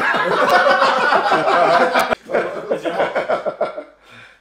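A group of men laughing loudly, with a sudden break about two seconds in, then more bursts of laughter.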